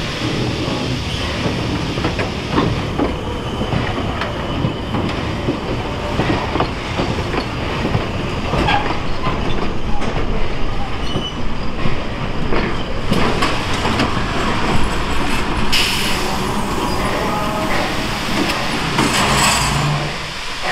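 Narrow-gauge steam train running on the rails, a steady rumble with the wheels clicking and knocking over the rail joints.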